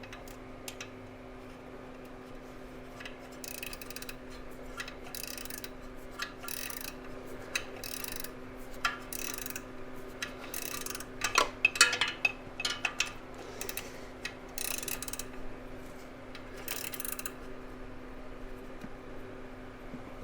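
Hand ratcheting wrench working a bolt in a tight spot: a run of short ratcheting strokes about a second apart, with a few sharper metal clinks of the tool against the engine bay near the middle.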